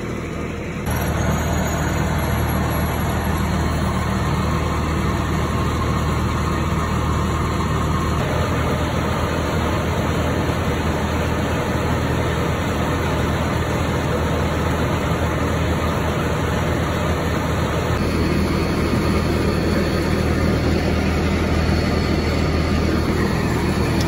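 Gleaner combine's engine idling steadily, a low even hum.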